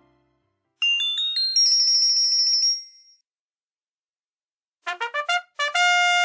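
Twinkling bell chime: a quick rising run of high bell notes about a second in, ringing for about two seconds. It is the cue to turn the page. Near the end, a short trumpet fanfare plays a few quick notes and then a held one.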